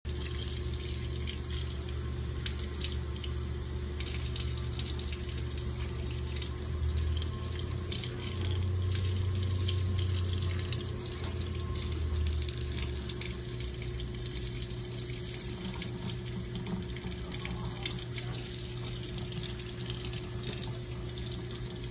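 Sink faucet running in a steady stream, the water splashing over a puppy held under it and into the sink basin.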